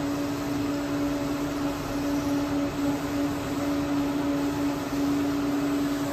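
Centroid 5-axis CNC mill machining a billet aluminum cylinder head: a steady high whine from the spindle and cutter over an even hiss of coolant spray.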